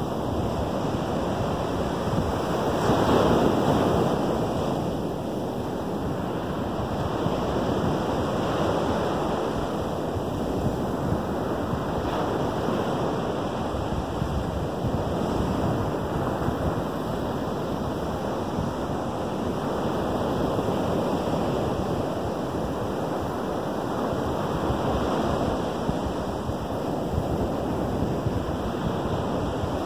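Waves breaking on a sandy Lake Michigan shore: a continuous surf wash that swells with each breaker every few seconds, loudest about three seconds in.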